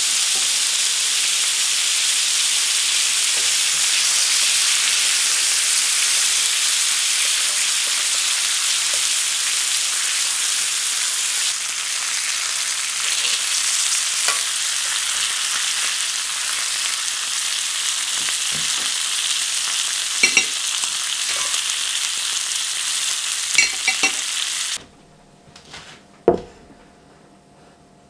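Pork chops and vegetable wedges sizzling in butter in a frying pan, a loud, steady hiss with a few sharp clicks of tongs against the pan near the end. The sizzle cuts off suddenly, and a single knock follows.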